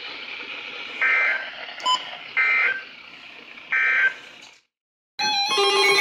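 Weather radio sending the three short SAME data bursts that end an emergency alert: three harsh digital squawks, each about a third of a second long and about 1.3 s apart, over a steady hiss. About five seconds in, after a moment of silence, a loud jumble of steady alert tones starts.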